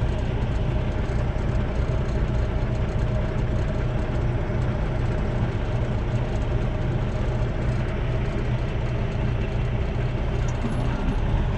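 Semi truck's diesel engine running at low speed as the truck creeps and turns, a steady low drone heard from inside the cab.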